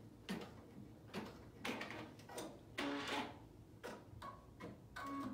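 Embroidery machine stitching a tack-down outline, heard as a faint run of clicks and knocks at roughly two a second.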